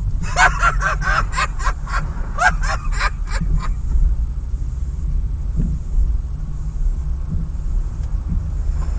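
Steady low rumble of a car driving in city traffic, heard from a dashcam inside the cabin. In the first few seconds a rapid run of about a dozen short, pitched calls rises above it, then stops.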